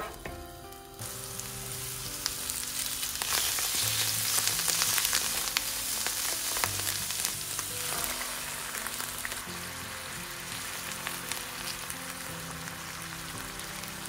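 Sliced mushrooms sizzling in hot olive oil in a frying pan, with light scrapes and taps of a wooden spoon stirring them. The sizzle starts about a second in, is loudest a few seconds later, then settles to a steadier hiss.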